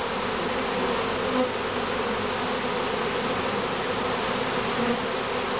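A swarm of honey bees buzzing loudly and steadily, a dense hum with wavering pitches, from an open top bar hive whose collapsed honeycomb has stirred up the colony.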